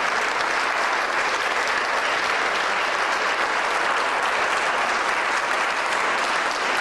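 Audience applauding steadily, a dense even clapping of many hands.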